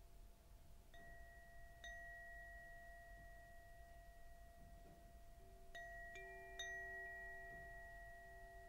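Faint, soft background music of bell-like chime notes. Two notes are struck about a second in, then a cluster of three more after about six seconds, each left to ring on for several seconds.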